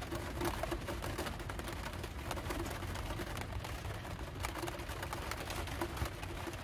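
Rain pattering on a van's roof: a steady, dense tapping of many small drops.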